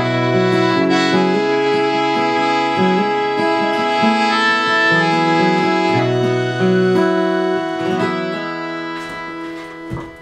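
Instrumental folk music: a piano accordion playing held chords over a moving bass line, with an acoustic guitar picked underneath. The music dies away near the end.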